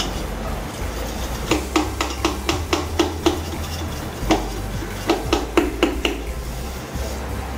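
A thin stick worked quickly up and down inside a copper bottle, knocking and scraping against its inside at about four strokes a second. The strokes come in two runs, one starting about a second and a half in and the next about four seconds in.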